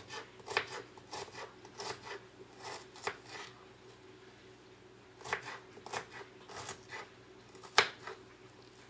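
Kitchen knife cutting a peeled sweet onion on a plastic cutting board: a run of short crisp cuts, a pause of about a second and a half, then more cuts, with one sharp knock near the end.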